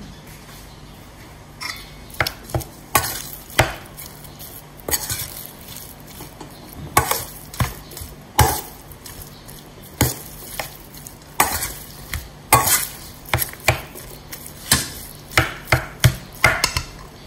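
A metal spoon stirring and mashing a soft potato-and-chicken mixture in a stainless steel bowl, clinking and scraping against the bowl at irregular intervals.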